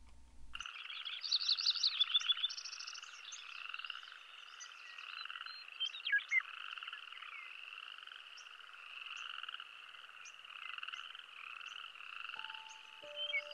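Outdoor animal chorus: a steady, pulsing trill with scattered short high chirps, starting suddenly about half a second in. Steady music tones come in near the end.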